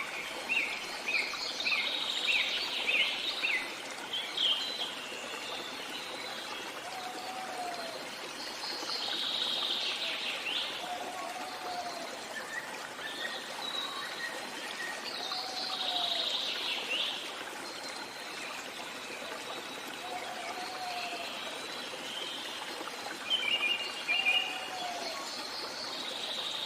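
Several songbirds singing over a steady trickling stream. Quick runs of high chirps are loudest in the first few seconds and again near the end, and a lower, curving call repeats about every three to four seconds.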